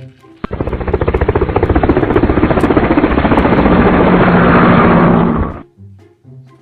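A vehicle sound effect: a loud motor sound with a fast, even pulsing. It starts suddenly, grows louder, and stops after about five seconds.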